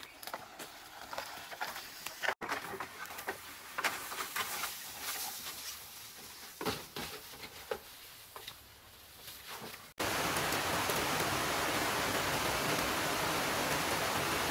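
Footsteps and rustling through dry leaves and twigs, with scattered light knocks from bamboo poles being carried. About ten seconds in this gives way to a louder, steady rush of flowing river water.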